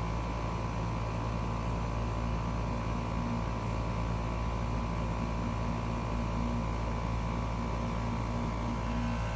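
3-ton air conditioner's outdoor condensing unit running steadily: a constant compressor hum with fan noise, the system running while its refrigerant charge is checked.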